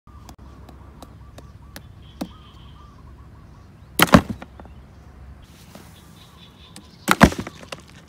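Cardboard-box bird trap snapping shut, its lid slamming down in a sharp thump about four seconds in, then again in a second thump about seven seconds in. Faint regular clicks come in the first two seconds.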